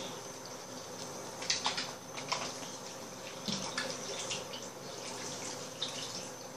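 Bathroom sink tap running, with hands being washed under the stream and splashing now and then.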